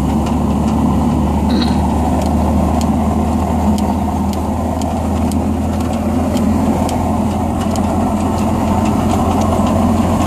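Pickup truck driving slowly, its engine running steadily under a continuous rolling rumble from the road, with faint scattered ticks.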